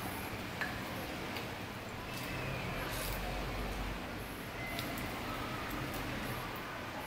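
A few faint clinks and clicks as a wooden spoon scrapes blueberries out of a small glass bowl onto bowls of oatmeal, over a steady low hiss.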